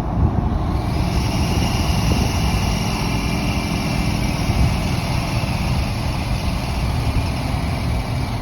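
A 2022 GMC Sierra 2500HD's L5P Duramax turbodiesel V8 squeals with its exhaust brake working. A high squeal of several tones comes in about a second in over the steady engine and road rumble, and cuts off near the end.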